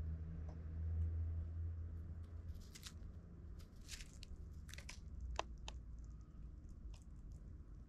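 Eurasian tree sparrows pecking at birdseed in plastic feeding trays: a scatter of short, sharp clicks and small crunches as beaks strike the seed and the tray, starting a couple of seconds in. A low rumble fades out over the first couple of seconds.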